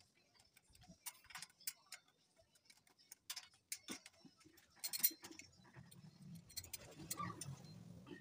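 Irregular light metallic clicks and taps as the wire grid sections of a parabolic grid antenna are handled and fitted to its metal mounting bracket, with a louder cluster about five seconds in. From about halfway through, a low steady droning sound joins in.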